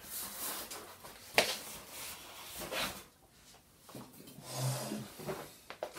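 An empty cardboard shipping box being moved aside: scattered rustling and handling noise, with one sharp knock about a second and a half in and a few softer knocks later.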